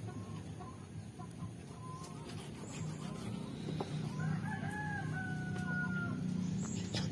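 A rooster crows once about four seconds in, one long call of about two seconds, with a few sharp knocks of a knife against a plastic cutting board.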